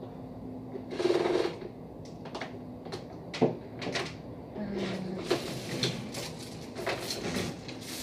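Scattered plastic clicks and knocks from handling a new Philips canister vacuum cleaner's body, cord and hose, with the sharpest click about three and a half seconds in.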